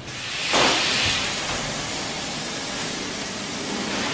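A steady hiss, swelling sharply about half a second in and then holding even.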